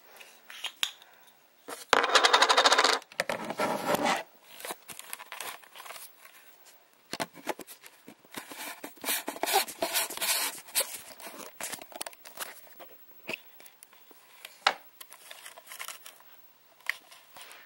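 Close-up handling noise on a camcorder as a lens is unscrewed from its front and a fisheye converter lens is screwed onto it: scraping, rubbing and clicking right at the microphone. The loudest part is a dense rasping stretch about two seconds in, followed by scattered clicks and scrapes.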